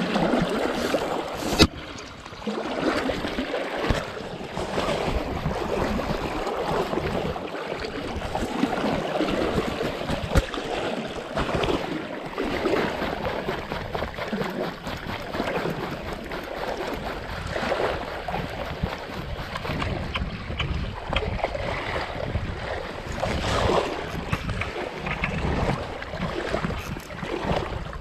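Wind buffeting the microphone over a steady rush of water, with a sharp knock about a second and a half in.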